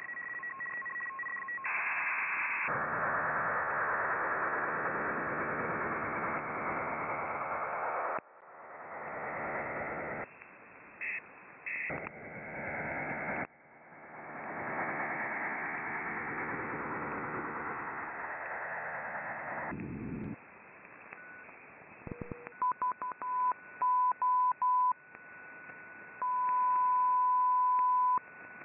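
Shortwave receiver audio in upper-sideband mode while being tuned across the 8 MHz maritime band: hiss and static that jump abruptly in level, with brief whistles as signals pass. About two-thirds of the way in it settles on a signal: a tone near 1 kHz keyed on and off in short and long beeps, over a steady higher whistle.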